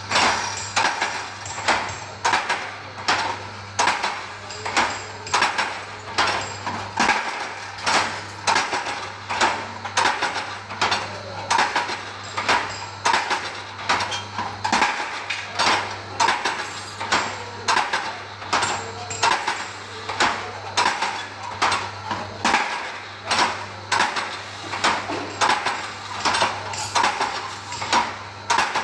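Automatic rebar stirrup-bending machine running, its electric motor humming steadily under a regular metal-on-metal clanking from the bending mechanism, about three clanks every two seconds.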